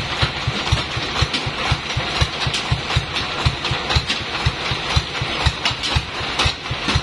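Bandsaw mill's engine idling with an even low beat, about four to five a second, and a few sharp knocks near the end as wooden mallets strike the log carriage's clamps.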